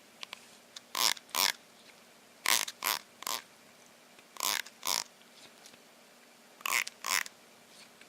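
An animal making short, noisy, breathy sounds, mostly in pairs about half a second apart, repeating roughly every two seconds.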